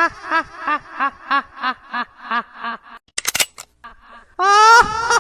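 A high-pitched laugh sound effect: a run of short pulses, about three a second, fading and falling in pitch. It is followed by a few sharp clicks about three seconds in, then the laugh starts again loud near the end.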